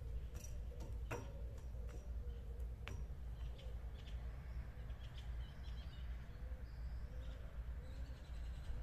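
Park ambience: small birds chirping here and there over a steady low rumble, with two sharp knocks, about one and three seconds in.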